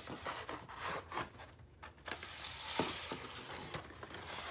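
Hot Wheels blister-pack cards and cardboard being handled and slid into the slots of a cardboard display rack: a few light taps and clicks, then a steadier rustle from about two seconds in.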